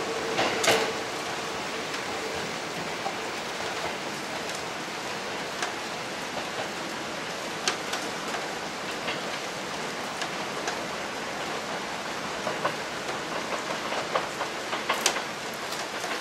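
A Hankyu 1000 series electric train pulling away from the station. A steady whine fades out in the first few seconds, leaving a steady hiss with scattered light clicks.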